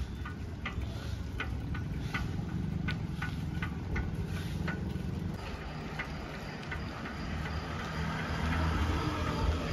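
Street ambience: a vehicle engine runs low and steady under regular sharp ticks, about three a second, through the first half. From about midway a thin, steady, high insect-like drone takes over.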